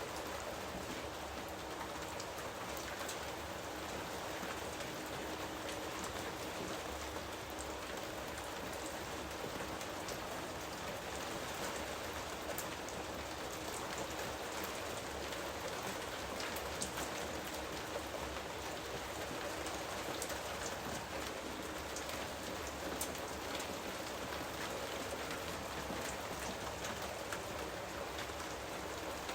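Steady rainfall: an even hiss of rain with fine drops pattering on a surface.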